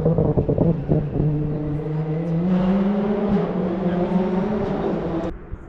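Rally car engine under hard acceleration, its pitch climbing with a brief dip at a gear change. The sound cuts off abruptly near the end.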